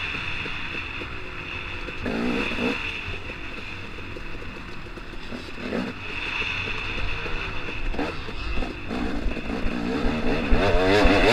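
KTM 250 XC-W two-stroke dirt bike engine revving up and down as the bike is ridden hard, getting louder near the end as it accelerates.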